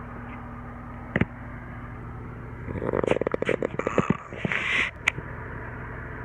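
A sleeping man snoring, a sound likened to a tree frog: a quick, rattling snore about halfway through, followed by a hissing breath with a thin whistle. A steady low hum runs underneath, with a couple of sharp clicks.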